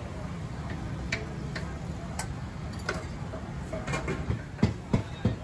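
Stainless steel cookware clinking at a noodle cooker: light metal taps and clicks, then near the end a run of sharp knocks, about three a second, over a steady low hum.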